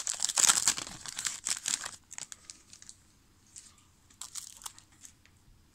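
A trading-card pack wrapper crinkling and tearing as it is opened, with dense crackling for about the first two seconds. After that come only scattered light rustles and clicks.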